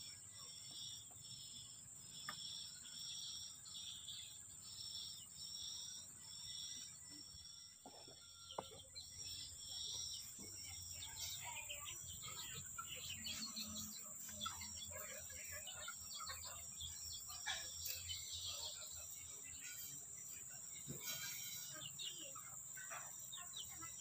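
Outdoor ambience of insects and birds: a steady insect drone with a regular pulsing call through the first half, then many short bird chirps scattered over the rest.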